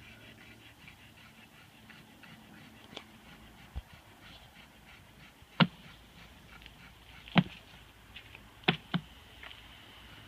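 Sharp wooden knocks and clicks as a beehive frame is pried loose with a metal hive tool and lifted out of the hive box, a few small ones early and four louder ones in the second half.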